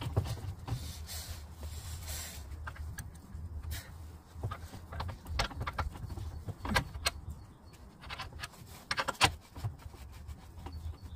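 Scattered metallic knocks and clinks of hands working the front wheel hub and steering knuckle while a new front driveshaft is fitted, the loudest about nine seconds in, over a steady low rumble.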